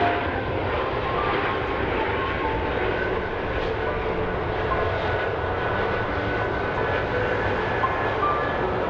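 McDonnell Douglas MD-90's rear-mounted IAE V2500 turbofans running steadily as the jet rolls along the runway: an even rush of jet engine noise.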